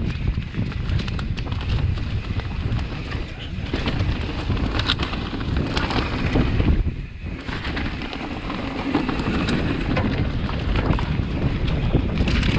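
Mountain bike descending a dirt flow trail at speed: wind buffets the microphone over the tyres rolling on dirt, with scattered clicks and rattles from the bike. There is a brief lull about seven seconds in.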